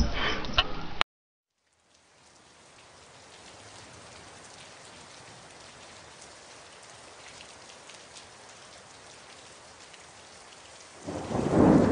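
A thin stream of tap water running from a kitchen faucet into a stainless steel sink and splashing on the drain: a steady, even splashing hiss with faint small ticks. A louder first second cuts off into a short silence, and a loud low rumble comes near the end.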